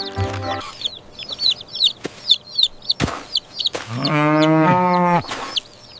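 Farmyard poultry sound effects: a flurry of quick, high peeping chirps and clucks. About four seconds in comes a single long, low moo from a cow.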